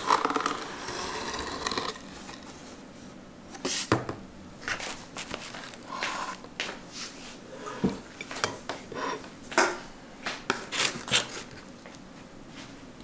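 Cardboard pizza box being opened and handled and a slice pulled out, with scattered light knocks, clicks and rustles and a few clinks of dishes on a table.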